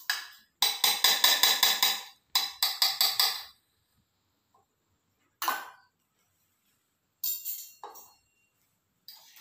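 Metal spoon clinking against a stainless-steel bowl of sugar glaze in two quick runs of taps, about six a second. A few single clinks and scrapes follow later.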